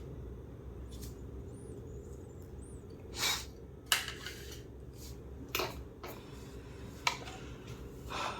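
Short clicks, knocks and scrapes of hard parts and tools being handled while a steam iron is disassembled: about five separate sounds, the sharpest a click about four seconds in followed by a brief scrape, over a steady low hum.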